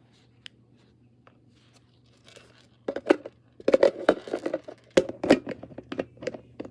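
Crinkly food packaging being handled, quiet at first and then crackling and rustling busily from about three seconds in.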